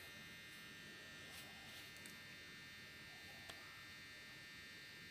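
Near silence: faint steady buzzing room tone, with one small click about three and a half seconds in.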